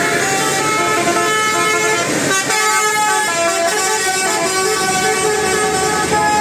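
Indonesian bus 'telolet' Basuri musical air horn playing a melody, its notes stepping from one steady pitch to the next, with a short break about two seconds in.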